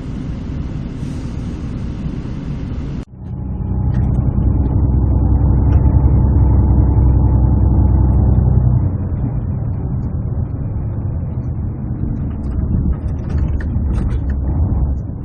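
A vehicle in motion: a steady low rumble of engine and road noise. It breaks off sharply about three seconds in, then comes back louder for several seconds before easing slightly.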